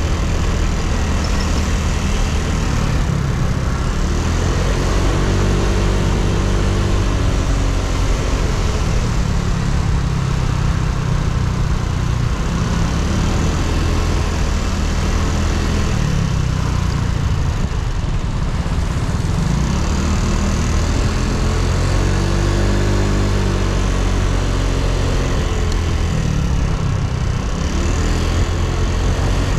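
Yamaha Cygnus X scooter's 125 cc single-cylinder engine running on the move, its pitch rising and falling several times with the throttle, over steady wind and road noise.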